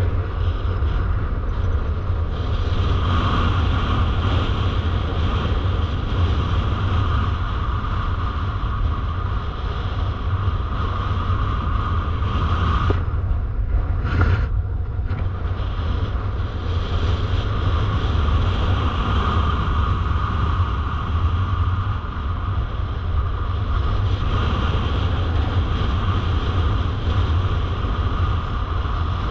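Airflow from paraglider soaring flight buffeting the harness-mounted camera's microphone: a heavy, steady low rumble with a hiss of air over it. The hiss thins out briefly about halfway through while the rumble carries on.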